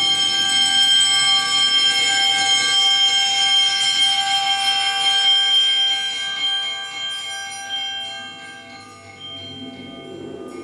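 Percussion ensemble's metal mallet instruments and bells letting a struck chord ring. The bell-like tones hold steady for several seconds, then slowly die away.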